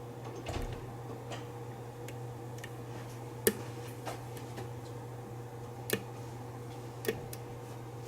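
Lock pick working the pin stack inside a challenge lock: faint ticks with three sharp metallic clicks, the first and loudest about three and a half seconds in, the others near six and seven seconds, over a steady low hum.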